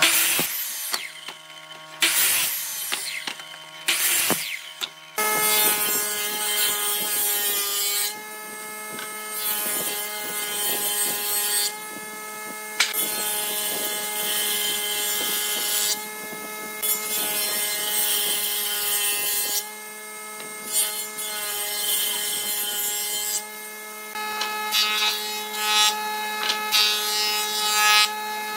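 Power saws cutting wood. A mitre saw's blade slices through a board in short bursts during the first five seconds. After that, a woodworking machine's motor runs with a steady hum while boards are ripped and planed, the cutting noise swelling and dipping with each pass and breaking off abruptly several times.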